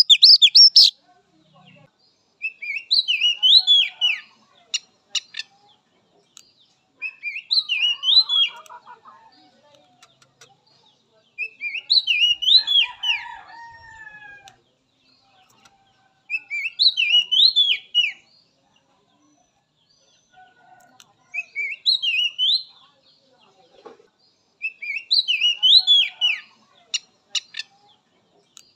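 Oriental magpie-robin (kacer) singing: a short phrase of quick whistled notes sliding up and down, repeated about every four to five seconds.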